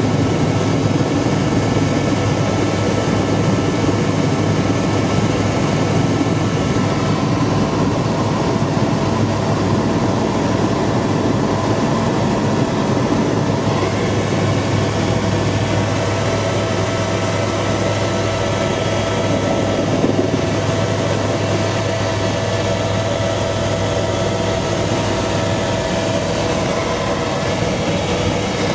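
Helicopter noise heard inside the cabin in flight: a loud, steady drone of rotor and turbine engine with a deep low hum and a few steady whining tones above it.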